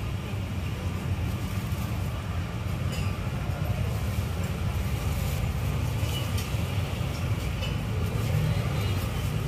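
Steady low rumble of road traffic, with a few faint clicks over it.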